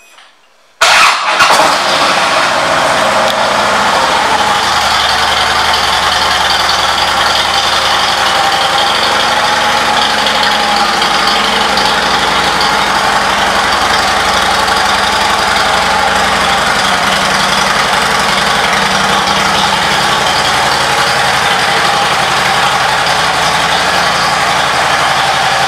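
2009 Harley-Davidson Road King Classic's air-cooled V-twin starting up about a second in, loudest as it fires, then idling steadily.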